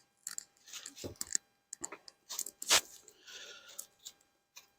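Scattered clicks, cracks and knocks of a wooden beehive being opened as the honey super is pried loose, with the sharpest crack a little under three seconds in.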